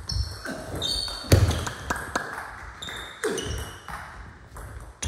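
Table tennis rally: the ball clicks and pings off bats and the table many times in quick irregular succession, with a couple of heavier thuds, about a second and three seconds in, from the players' feet on the hall floor.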